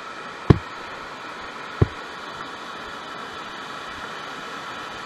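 Steady rush of whitewater from a river's rapids. Two dull thumps stand out near the start, about a second and a half apart.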